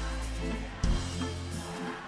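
Live rock band music in an instrumental stretch: a steady bass line with drums, and a heavy low drum hit just under a second in.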